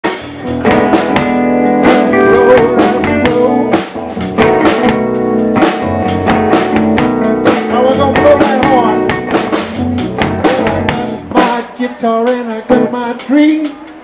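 Live band playing a blues-rock song on electric bass, drum kit and acoustic guitar, with steady drum hits. About eleven seconds in, the bass and drums drop out, leaving lighter guitar and voice.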